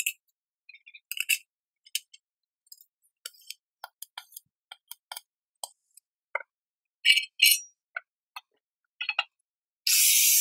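Sparse short metallic clicks and clinks from steel pieces being handled on a square steel tube. Near the end an angle grinder starts grinding the steel with a loud, steady hiss.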